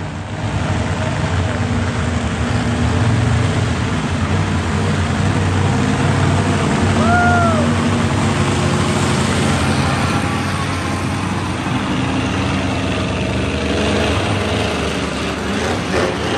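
Several monster trucks' engines running loudly as the trucks drive on a dirt track, with a brief rising-and-falling whistle-like tone about seven seconds in.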